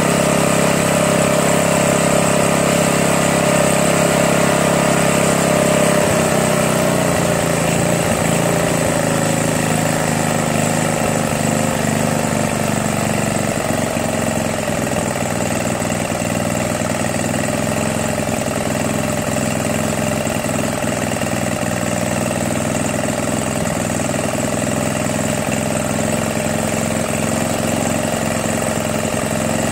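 Craftsman 522 snowblower's Tecumseh single-cylinder engine running; about six seconds in its speed eases down over several seconds and settles into a steady good idle.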